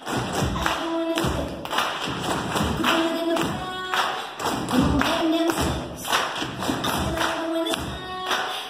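Upbeat dance music playing, with a regular rhythm of sharp taps from tap shoes on a wooden floor.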